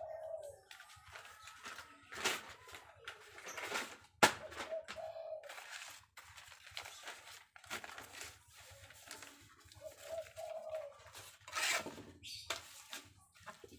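Stiff brown cement-sack paper being torn, handled and rubbed onto a wooden frame in irregular rustling, scraping strokes. There is a sharp tap about four seconds in.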